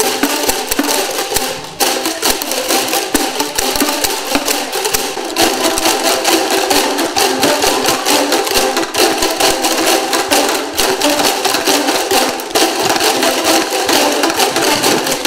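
A roomful of people striking plastic boomwhacker tubes together, a dense stream of hollow, pitched knocks in a fast shared rhythm. The playing thins briefly about two seconds in and grows fuller from about five seconds in.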